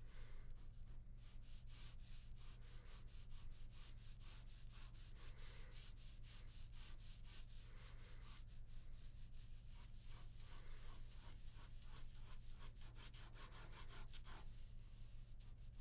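Ballpoint pen scratching across drawing paper in rapid, repeated short strokes, faint, over a steady low hum.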